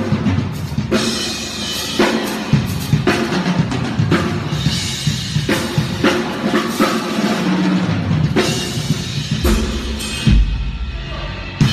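Drum kit played loudly with snare and bass drum hits amid music, during a band sound check. A few heavy low bass-drum thumps come near the end.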